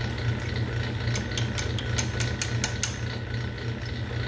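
Small metal lathe running with a steady low hum while the cutting tool takes a cut on the metal stock, giving a string of sharp, irregular ticks and clicks, thickest about a second to three seconds in.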